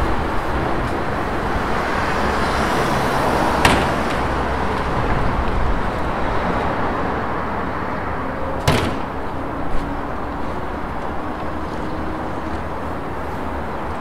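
City street ambience: a steady wash of road traffic, swelling over the first few seconds as a vehicle passes. Two sharp knocks stand out, about five seconds apart.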